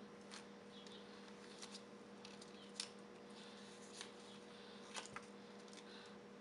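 Faint rustles and small ticks of Post-it notes being peeled off a pad and handled by a small child's hands, scattered irregularly over a low steady hum, with one sharper tick a little under halfway through.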